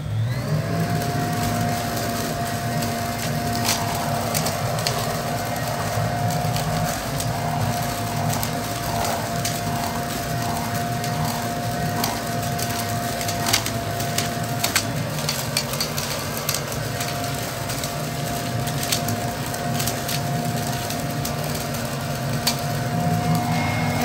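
Toro Ultra electric leaf blower-vac running in vacuum mode, a steady whine from its motor and impeller over a rush of air, with frequent sharp clicks and cracks as dry leaves and sticks are sucked in and shredded.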